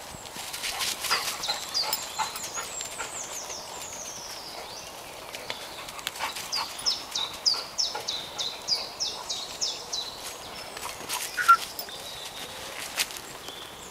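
A songbird singing: high, quick descending notes, a first run about a second in and a longer run of about four notes a second from about six seconds. Short clicks and crackles of movement through leaf litter are scattered through it, with one sharp snap near the end.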